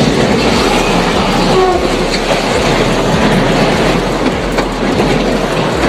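A train moving along its track, a loud steady rumble of wheels and cars on the rails.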